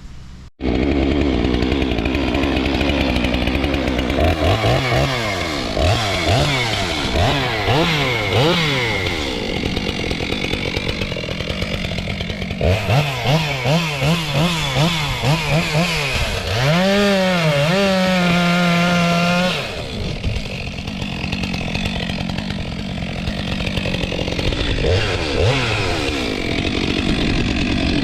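Stihl MS 462 C two-stroke chainsaw running hard, its revs rising and falling again and again. Near two-thirds through it is held at high revs for about two seconds, then drops back.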